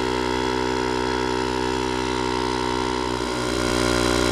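Handheld cordless electric tyre inflator running steadily, its compressor pumping up a flat 20-inch bicycle tyre toward a set 50 PSI. It gets a little louder and deeper about three and a half seconds in.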